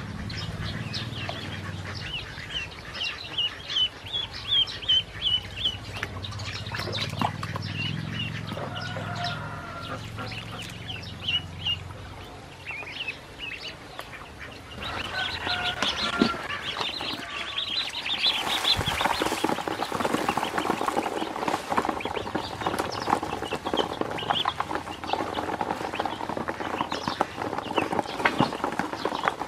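Ducklings peeping in quick runs of short, high cheeps. About two-thirds of the way through, a dense, rapid clicking sets in as their bills peck grain off the floor of a plastic basin, with the peeping going on over it.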